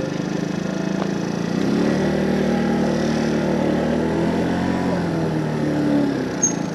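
Wolf Islander scooter's small engine running, growing a little louder about two seconds in as the throttle opens slightly.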